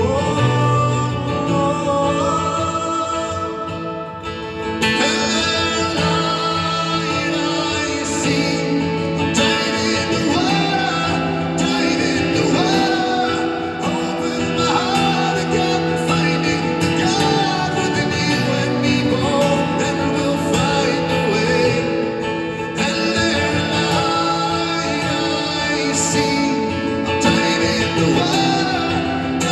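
Music: a passage of a song without lyrics, with guitar among the instruments.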